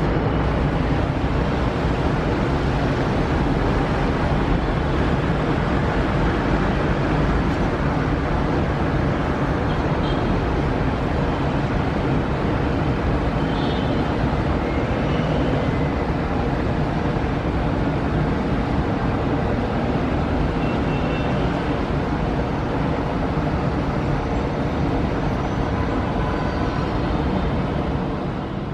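Steady roar of a Boeing 777-300ER's GE90-115B jet engines as the airliner touches down and rolls along the runway, fading out near the end.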